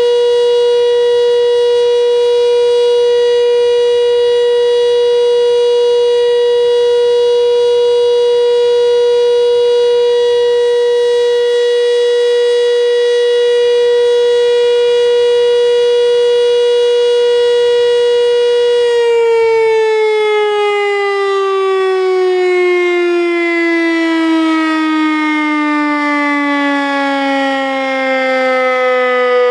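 Electromechanical fire-station siren sounding one steady, loud tone, the memorial signal for the Warsaw Uprising's 'W' hour. About two-thirds of the way in it is switched off and winds down, its pitch falling steadily to about half.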